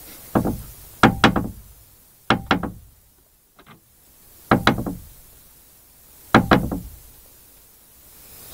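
A cat's paws rattling a metal window latch and stay arm against the frame: a series of sharp knocks with a short ring, coming in clusters every second or two, often as quick double knocks.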